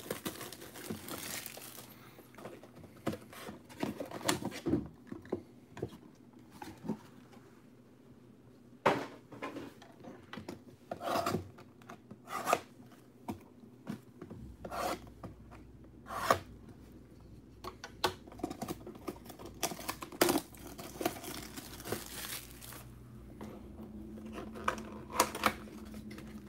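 Cardboard trading-card hobby boxes and their plastic wrap being handled and opened: irregular rubbing, scraping and tearing with short sharp taps.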